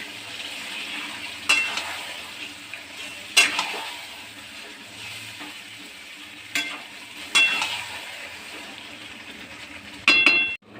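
Marinated mutton stir-frying in hot oil in a kadai, sizzling steadily, with a metal spatula scraping across the pan every second or two. Near the end comes a ringing metal clank.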